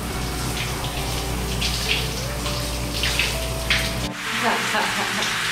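Shower water pouring from an overhead shower head and splashing onto a tiled floor around a person's feet. A low rumble under the splashing drops away about four seconds in.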